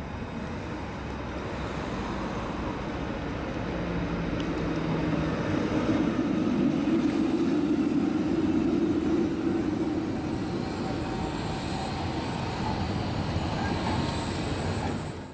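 Helsinki tram running along its tracks and coming close: a steady rumble of wheels on rails and motor hum grows louder as it passes at close range, then eases off a little.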